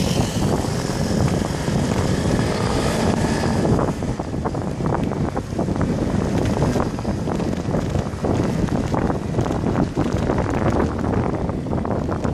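Wind rushing and buffeting over a bicycle-mounted camera's microphone while riding, mixed with the running of motor scooters in traffic just ahead. The buffeting grows rougher and more crackly from about four seconds in.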